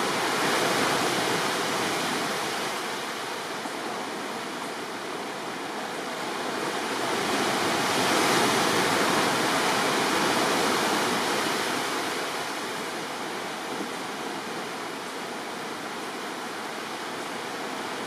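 Caribbean sea surf breaking on rocks and shore, a steady rushing wash that swells louder twice: about a second in, and again for several seconds from around seven seconds.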